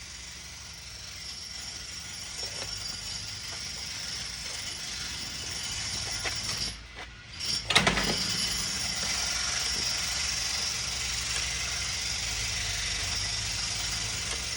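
Angle grinder with a cutting blade running through thick plexiglass. About seven seconds in it stops briefly, then starts up again with a loud surge and runs steadily with a high whine.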